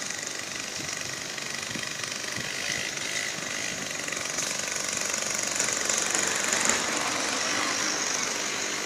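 Outdoor street noise: a steady hiss with a motor running somewhere, swelling a little about six seconds in.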